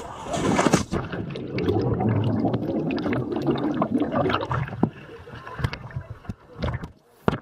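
Swimming-pool water churning and bubbling around a camera held under the surface, a muffled gurgling wash full of small clicks. It gets quieter about five seconds in, with splashes as the camera comes back up.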